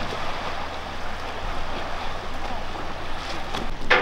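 A ferry boat's engine hums low and steady under a steady wash of outdoor noise. The hum ends near the end, with a sharp knock.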